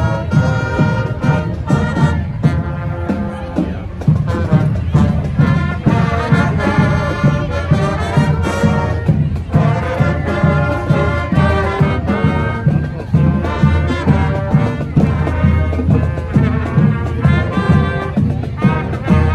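Marching band playing live, brass horns such as trombones and trumpets carrying the tune over a steady beat.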